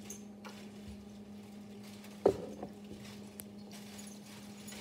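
A ceramic mug set down on a countertop with one sharp knock a little over two seconds in, and a smaller knock just after, over a steady low hum.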